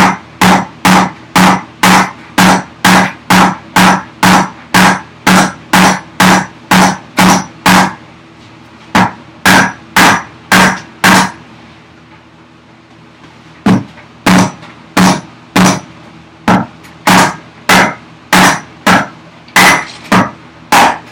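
A hammer striking a chisel driven into a wooden block, fast even blows about two to three a second, each with a short ringing note, in three runs with brief pauses about eight and twelve seconds in. The chisel is being driven in to split the wood fibres and pop off a waste section along a scored line.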